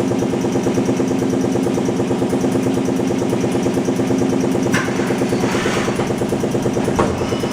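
Air compressor running steadily with a fast, even pulsing. About five seconds in, a CNC machining centre's automatic tool changer works over it: a clunk, a short hiss of air, then another clunk near the end.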